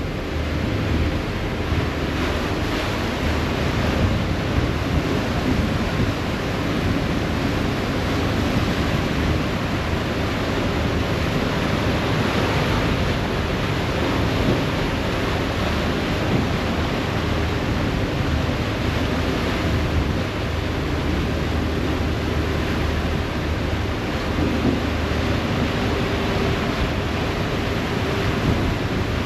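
Harbour ferry under way: a steady rush of water and wake along the hull over the low, even drone of the ferry's engines, with wind on the microphone.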